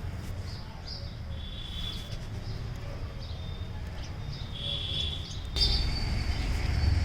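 Birds chirping in short, scattered calls over a steady low rumble, which gets louder about five and a half seconds in.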